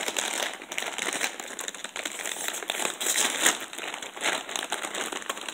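Potato chip bag crinkling loudly and continuously as it is handled, with many sharp crackles.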